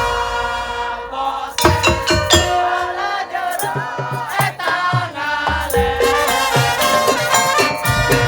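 Madurese tongtong ensemble playing: held melodic tones and a shaker rattle over struck percussion. The heavy drum strokes drop away at the start and build back in later.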